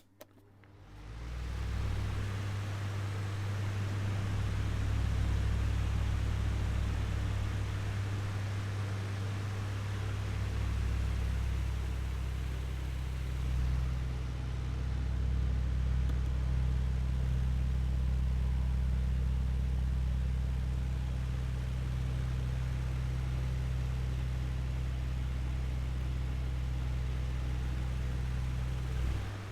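Electric fan running steadily, heard from medium range: a low motor hum under an even whoosh of moving air. It fades in over the first couple of seconds.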